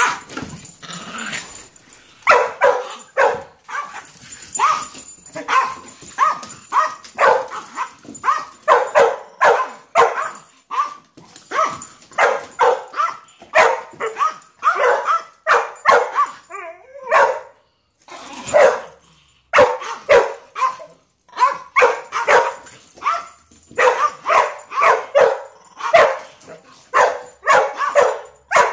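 Dog barking over and over in quick runs of sharp barks, with a few short pauses between runs.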